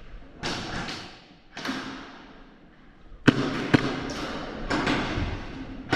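Thuds and rustling movement noise with two sharp knocks a little over three seconds in, about half a second apart, followed by continued shuffling and small knocks.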